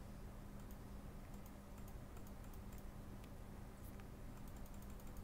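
Faint, light clicks of typing on a computer keyboard, scattered irregularly, over a low steady electrical hum.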